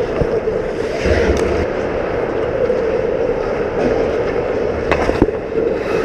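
Ice hockey play heard from inside the net: a steady rink drone with skates scraping and gliding on the ice, and a couple of sharp clacks of sticks or puck about five seconds in.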